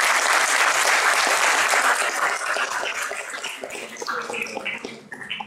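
Audience applauding, dense and steady at first, then thinning out and dying away from about two seconds in.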